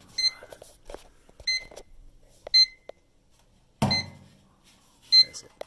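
Black and Decker toaster oven's control panel beeping by itself, five short beeps about a second and a quarter apart: its faulty control keeps registering the temperature-up button with nobody pressing it. A knock sounds about four seconds in.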